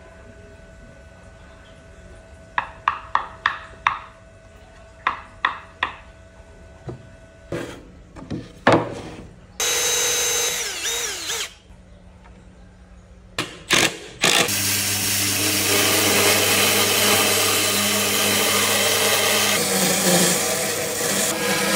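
A run of sharp taps, then a cordless drill running for about two seconds near the middle. From about two-thirds of the way in, a bandsaw runs on, cutting round a thick wooden disc.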